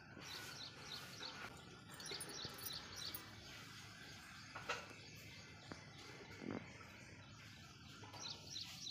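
Small birds chirping faintly in short runs of quick, high chirps over steady outdoor background noise, with one sharp click about halfway through.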